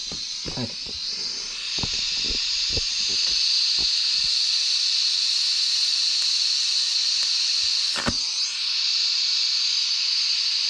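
Scratch-start TIG welding torch hissing steadily on stainless steel pipe, the hiss growing louder about a second and a half in. A few soft knocks come in the first four seconds and a sharp click about eight seconds in.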